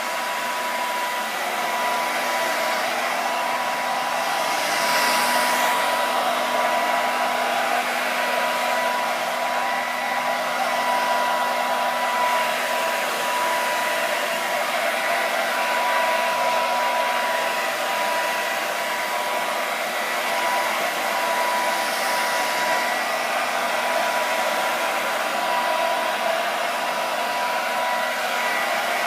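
Handheld hair dryer blowing without a break: a steady rush of air with a thin steady whine from its motor, drying a crackle glaze paint coat so the cracks form.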